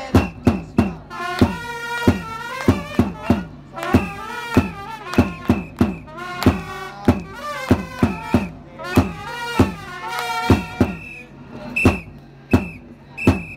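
A baseball cheering section playing a player's fight song led by trumpets over a regular beat of sharp strikes, about one and a half a second. A single high note is held near the end.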